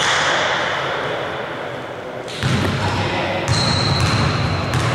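Sports-hall ambience: indistinct voices of players and onlookers echoing in a large hall, with a basketball bouncing on the hardwood court. A thin, steady high tone comes in about three and a half seconds in and lasts a little over a second.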